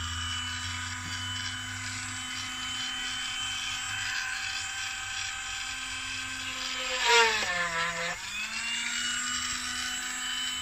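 Dremel rotary tool running at a steady high whine while drilling a hole in the rim of a plastic planter. About seven seconds in, its pitch drops for a second as the bit bites into the plastic, then climbs back.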